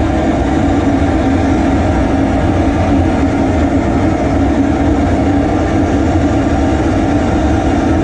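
Steady, continuous rush of hot-spring steam through an egg steamer, with a low hum and no breaks.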